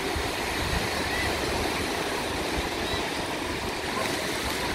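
Small waves breaking and washing up a sandy beach, a steady surf hiss, with a few faint distant shouts from bathers now and then.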